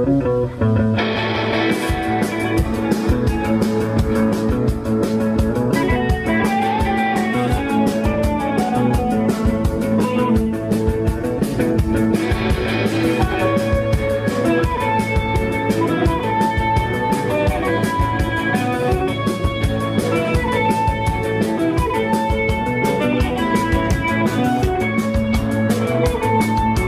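Live rock band playing: electric guitars over bass, with the drum kit and cymbals coming in about two seconds in and keeping a steady beat.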